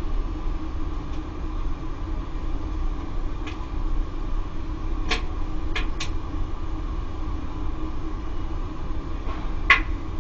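Circulation pump of a Laddomat 21 charging unit on a wood-boiler heating circuit, running with a steady hum. A few sharp clicks come in around the middle and one louder click near the end.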